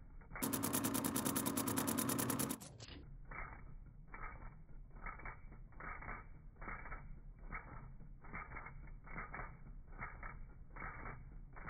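End mill cutting a steel tool post block on a milling machine: a grinding, creaking cut that pulses about twice a second. About half a second in, a louder, brighter stretch of fast, even rasping lasts about two seconds before the quieter pulsing cut returns.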